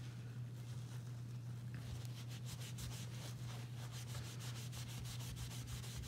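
Microfiber cloth scrubbing metal polish onto the base of a brushed nickel faucet: quick back-and-forth rubbing strokes, several a second, starting about two seconds in, over a steady low hum.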